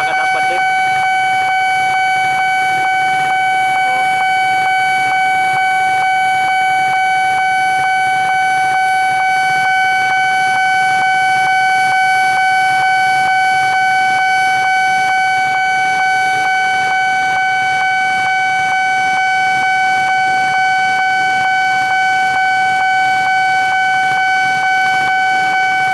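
Railway level-crossing warning alarm sounding a loud, steady electronic tone without a break, warning that a train is approaching and the crossing is closed.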